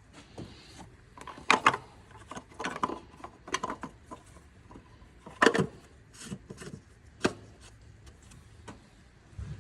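Irregular knocks, clinks and scrapes of tools and parts being handled during hands-on mechanical work, with the loudest knocks about a second and a half and five and a half seconds in.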